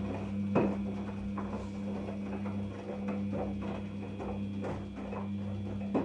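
Daewoo DWD-FT1013 front-loading washing machine tumbling a wash-and-rinse load: a steady motor hum under irregular splashes and thuds of wet laundry falling in the turning drum, with one sharper knock just over half a second in.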